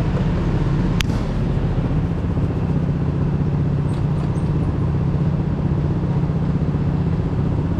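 Go-kart engine running steadily with a fast, even pulse, and a sharp click about a second in.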